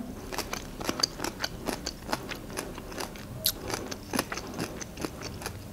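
Close-miked chewing of soft food, heard as many small irregular wet mouth clicks and smacks, with a light scrape of a fork on the plate.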